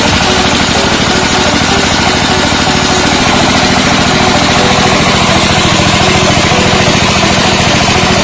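An engine running steadily at an even, rapid firing rhythm, loud and close.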